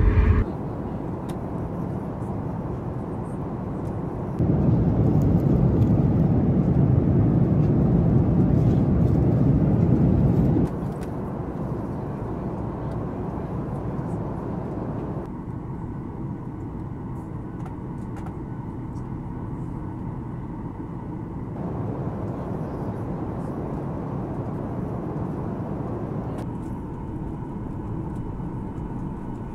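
Steady jet airliner cabin noise, the engines and rushing air heard from a window seat, in several short clips joined with abrupt changes in level. The stretch from about four to ten seconds in is louder and deeper than the rest.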